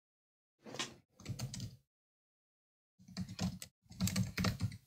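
Typing on a computer keyboard in four short runs of quick keystrokes, entering a username and password.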